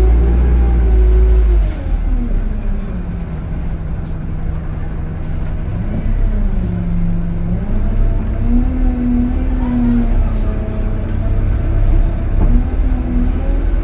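A city bus's diesel engine and drivetrain heard from inside the passenger saloon. A heavy rumble drops away about two seconds in, then the engine note stays low and rises and falls again as the bus creeps along at low speed.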